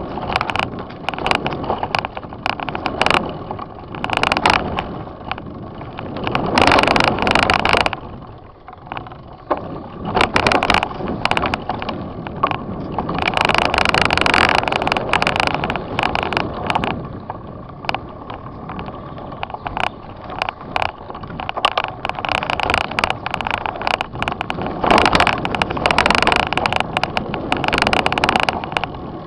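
Mountain bike riding a rough forest trail, heard through a handlebar-mounted camera: a continuous rattle and rumble of tyres over dirt and roots, with many sharp knocks and clicks from the bike over bumps. It grows louder in several longer stretches, one of them as the tyres cross gravel about halfway through.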